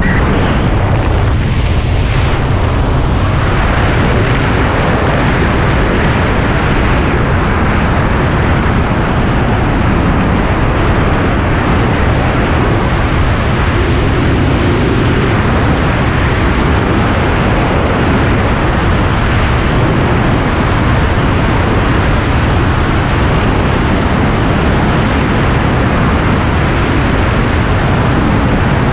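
Loud, steady rush of wind blasting across the microphone of a jumper's camera during a tracking-suit BASE flight at freefall speed.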